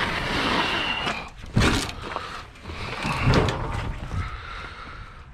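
Scrap metal being handled: scraping and clunking, with a loud knock about a second and a half in and another a little after three seconds.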